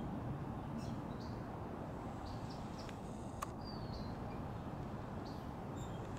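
Quiet garden ambience: a steady low rumble, with faint, short high chirps from small birds scattered through it and a single sharp click about three and a half seconds in.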